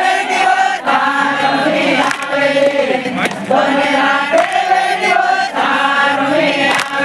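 A crowd of young men singing and chanting together in unison, in short repeated phrases about a second long.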